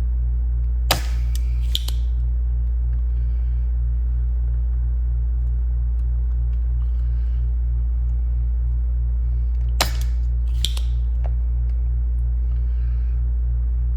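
Steady low electrical hum with a faster pulsing buzz over it, broken by two pairs of sharp clicks, one pair about a second in and another near ten seconds in.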